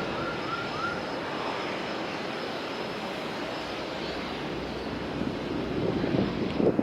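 Steady rumble of a fixed-wing aircraft's engines, growing louder near the end. A quick series of short, high chirps sounds in the first second.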